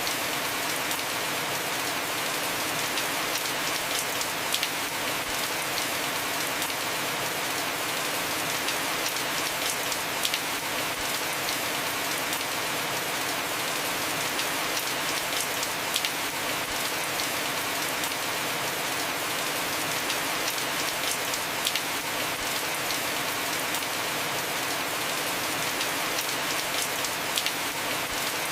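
Heavy, steady rain falling on a house roof: an even hiss with sharp individual drops ticking through it.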